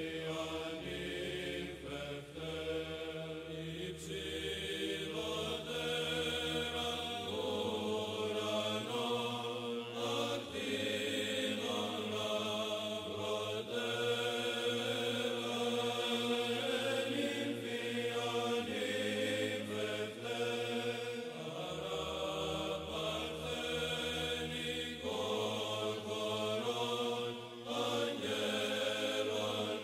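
Background music of slow vocal chant: several voices hold long notes over a sustained low drone note, which shifts pitch a few times.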